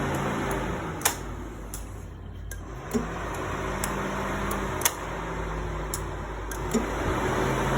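Mechanical hum from a 2003 Subaru Forester XS that swells and fades about every two seconds. Each cycle opens with a sharp click.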